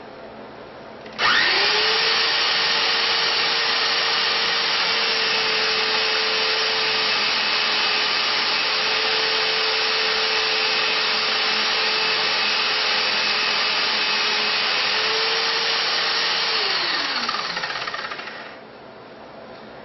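Corded electric drill spinning a sanding mop, with a thin wooden fretwork board held against the flaps to sand the fuzzies off its back. The drill starts about a second in and quickly comes up to a steady whirr. Near the end it is switched off and winds down with a falling pitch.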